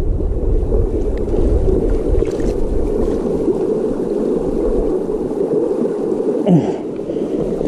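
River water flowing and rushing steadily, an even, low-pitched wash of sound.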